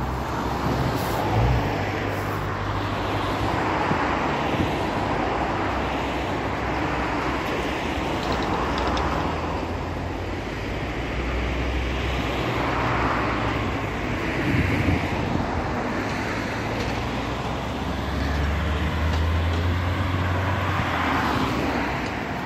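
Road traffic: cars driving past one after another, each one swelling and fading, over a steady low rumble.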